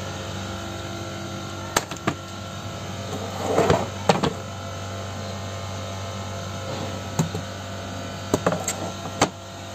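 Steady low electrical hum, with a handful of sharp clicks and knocks scattered through it and a brief rustling scrape about three and a half seconds in.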